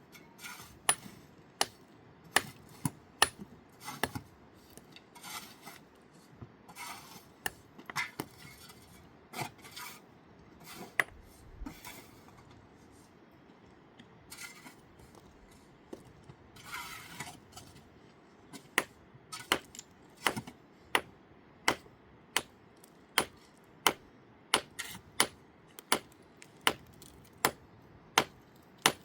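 Sharp knocks of a hard object striking something hard, irregular and mixed with short scraping sounds at first, then settling into a steady rhythm of about two strikes a second in the second half.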